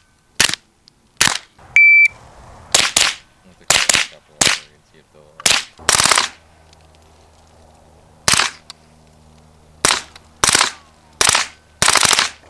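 Gunshots at a range: a few shots, then a shot timer's single electronic beep about two seconds in, followed by a string of shots at an uneven pace, some in quick pairs, closing with a fast run of shots near the end.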